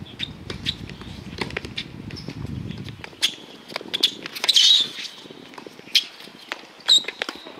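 Tennis rally: rackets striking the ball with sharp pops every second or so, each player hitting in turn. Brief high squeaks, typical of tennis shoes sliding on a hard court, come between the hits.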